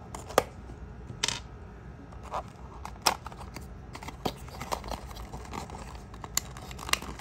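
Fingers handling and opening a small cardboard box: scattered clicks and scrapes as the end flap is pried open, the sharpest click about half a second in and a short rustle just over a second in.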